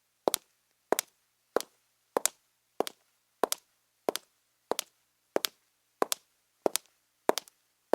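High-heeled shoes walking at a steady, even pace, about three steps every two seconds; each step is a sharp click followed closely by a softer second tap.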